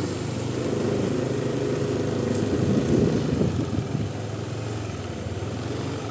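A motor vehicle's engine running, getting louder to a peak about three seconds in and then easing off.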